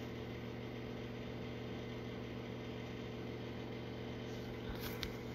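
Steady low mechanical hum, with two or three faint clicks about five seconds in.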